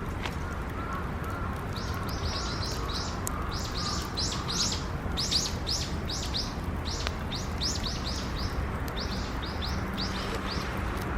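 A small bird singing a rapid series of short, high, falling chirps, over a steady low background noise with a few faint clicks.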